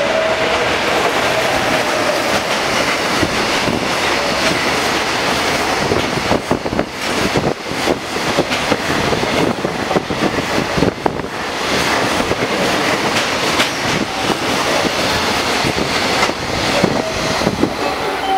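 EF210 DC electric locomotive and its long train of container wagons passing through at speed: a continuous rushing rumble of wheels on rail. From about six seconds in, a rapid, uneven run of clacks joins it as the wagon wheels cross rail joints.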